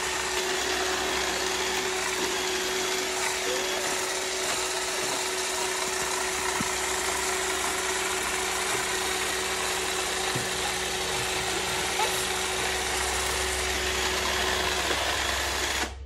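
iRobot Roomba robot vacuum running: a steady whirr of its vacuum fan and brushes with a constant hum underneath. It stops abruptly near the end.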